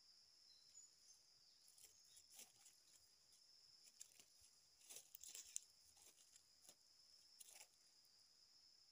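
Faint crackling and rustling of dry leaf litter as a rooster pecks and steps about, loudest in a cluster about halfway through, over a faint steady high drone of forest insects.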